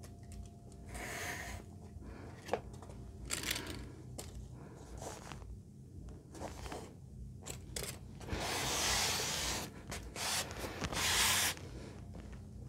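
Quiet handling noise as a foam strip is positioned and pressed down on foam board by hand: scattered rustles, scrapes and light clicks, with two longer rubbing sounds in the second half.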